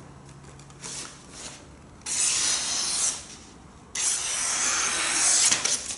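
Rubbing, scraping strokes with no pitch: a few faint short scrapes, then a stroke of about a second and a longer one of about two seconds.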